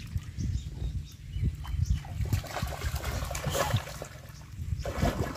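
Muddy floodwater splashing and sloshing as a boy wallows and pushes himself through it, in irregular bursts that are busiest in the middle, over a steady low rumble.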